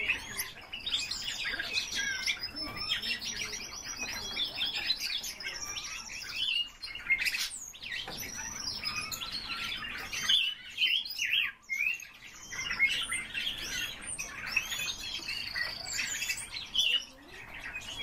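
Red-billed leiothrix (Pekin robin) singing a long, fast, varied song of whistled phrases, sweeping notes and trills.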